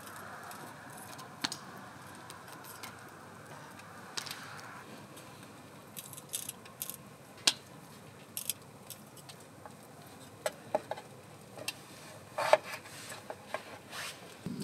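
Kitchen knife peeling potatoes over a wooden cutting board: scattered small scrapes and sharp clicks of blade and peel on the board, a few louder taps near the end. A soft even hiss runs underneath for the first few seconds.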